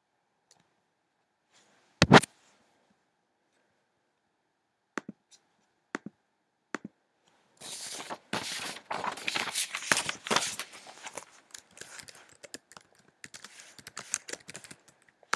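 A single sharp click about two seconds in, a few soft clicks, then a fast run of laptop keyboard typing from about eight seconds in that thins to scattered keystrokes near the end.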